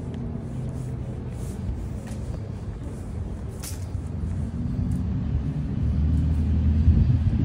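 A car's engine and road noise: a steady low rumble that grows louder over the last few seconds.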